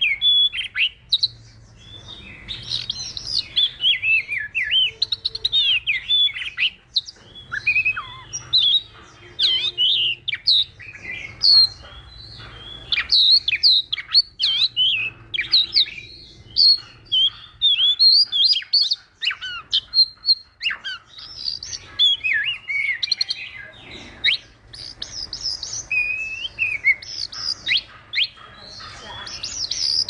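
Chinese hwamei singing a long, varied song of loud, rich whistles, up-and-down slurred notes and quick trills, with only brief pauses.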